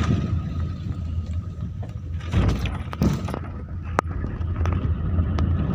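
Car cabin noise while driving on a rough mountain road: a steady low rumble from the engine and tyres, with scattered rattles and clicks inside the car, the sharpest about four seconds in.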